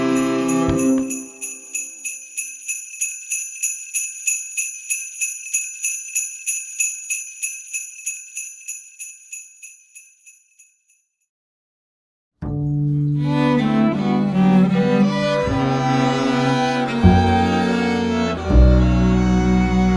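A string ensemble's last chord dies away, then a jingle bell is shaken in a steady beat of about two and a half strokes a second, fading out over about nine seconds. After a brief silence, a string ensemble of violins and cellos starts playing.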